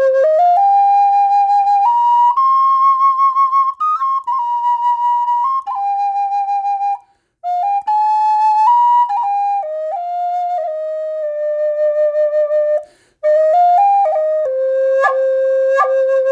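Island Flutes bamboo Native American-style flute in the key of C, played solo with a sweet tone: a slow melody stepping up from its low note and back down in held notes, with two short pauses for breath. It ends on a held low note with quick flicked grace notes and a gentle vibrato.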